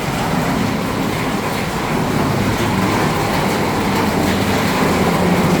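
Heavy rain falling steadily on the roof overhead, a dense, even hiss that grows slightly louder.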